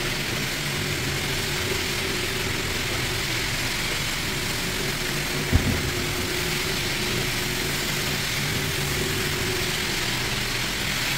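Rotary floor buffer running steadily with an abrasive pad, scrubbing hard built-up wax off a hardwood floor: an even motor hum with the pad's scrubbing noise. A short low bump a little over halfway through.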